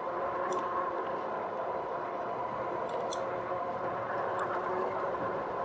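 2018 RadMini electric fat-tyre bike cruising at about 24 mph: a steady whine of several tones from the hub motor and tyres over road and wind noise, with a few faint ticks.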